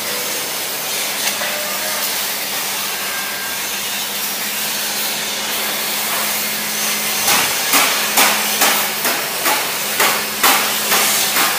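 Steady workshop hiss with a faint hum, then from about seven seconds in, a hammer striking sheet-steel bodywork at roughly two blows a second.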